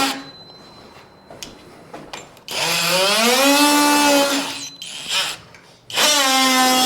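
Oscillating multi-tool trimming the inside corners of a PVC trim board, running in short bursts of a buzzing whine. One run of about two seconds rises in pitch as it starts and drops as it stops, and another begins near the end.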